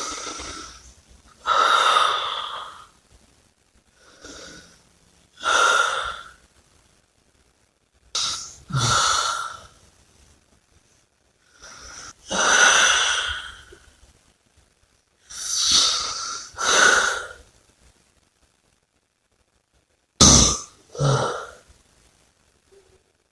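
A person breathing heavily: about a dozen loud, noisy breaths in and out, often in close pairs, with silent gaps of a second or two between them.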